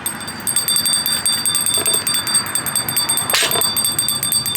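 Jingle bells ringing, shaken continuously, with a short burst of noise about three seconds in.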